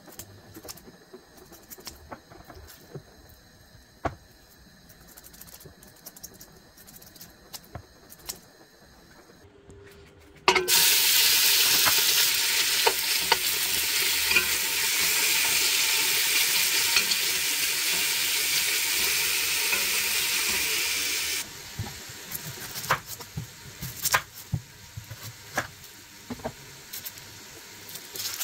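Thin slices of raw beef sizzling loudly in hot oil in a stainless steel pot, starting suddenly about ten seconds in and cutting off abruptly after about eleven seconds. Before it there are faint clicks of kitchen scissors cutting the meat; after it, sharp taps of a knife on a wooden chopping board while an onion is peeled.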